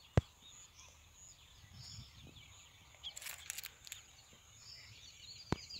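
Quiet farm-field ambience: a faint steady high insect drone with scattered bird chirps. There is a short rustle of movement in the middle, and a sharp click just after the start and again near the end.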